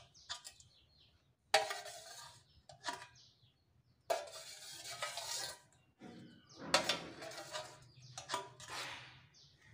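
Metal spoon scraping and clinking against the inside of an aluminium saucepan, about five times, as boiled chillies are scooped out of their cooking water.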